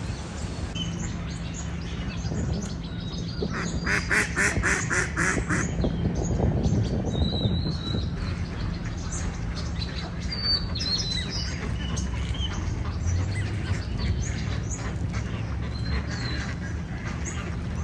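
Ducks quacking, with a quick run of about eight quacks around four to five seconds in. Small birds chirp here and there over a steady low hum.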